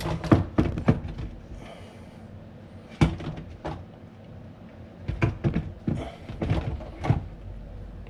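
Irregular knocks and clunks of a hard plastic wash motor and circulation pump assembly being pushed and worked into its seat in the sump of a dishwasher. The knocks come in clusters, with quieter handling noise between them.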